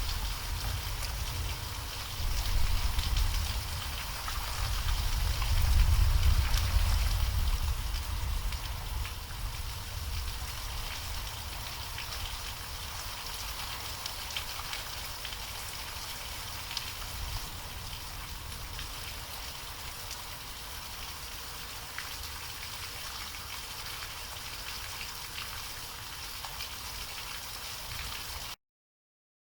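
Heavy rain falling steadily in a designed storm ambience, with a low rumble that swells twice in the first several seconds and then eases to a softer bed. The sound cuts off abruptly near the end.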